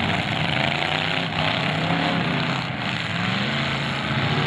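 Engines of several demolition derby cars running and revving at once, a loud, steady din whose pitch drifts up and down.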